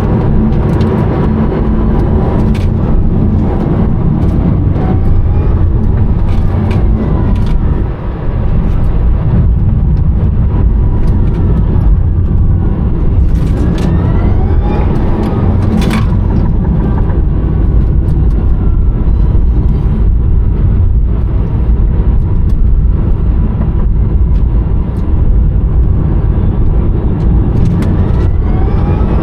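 Rimac Nevera electric hypercar heard from inside the cabin: heavy road and tyre rumble under the high whine of its four electric motors, which rises and falls in pitch with speed. A sharp rising whine comes about halfway through, followed by a fall, and another rise comes near the end.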